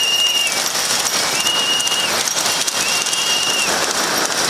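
A high-pitched beep repeating about every second and a half, each beep lasting under a second, over a steady rushing noise.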